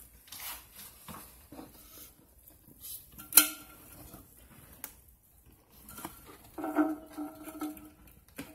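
Light clicks and knocks of hard plastic and porcelain as a gloved hand handles the flapper and its chain inside a toilet tank. One sharp knock comes about three and a half seconds in, and a short pitched tone sounds for about a second near the end.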